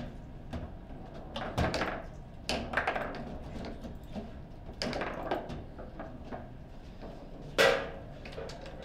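Sharp knocks on a table football table as the rods are worked and the ball strikes the players and walls: about five hard hits with short ringing tails, the loudest near the end.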